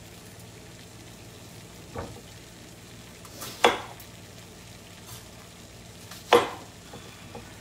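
Kitchen knife cutting down through a peeled onion into a wooden cutting board. A faint knock comes about two seconds in, then two sharp knocks about three and a half and six seconds in, over a steady low hiss.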